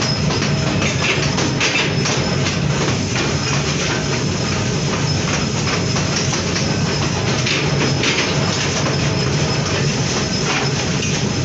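Mechanical power press with a large flywheel running in a forge shop: a steady machine hum under dense, irregular metal clatter and knocks as hot steel blanks are pressed.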